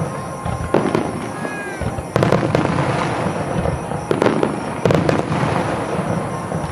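Fireworks display: aerial shells bursting in a rapid barrage, four sharp bangs with crackling between them.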